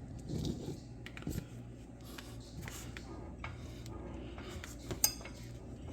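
Metal tools clinking and knocking against a car's brake caliper in a series of short, irregular clicks, with one sharp ringing clink about five seconds in, during work to push the caliper piston back.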